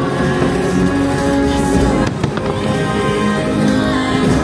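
Fireworks bursting over the show's music soundtrack, with a sharp firework bang about two seconds in.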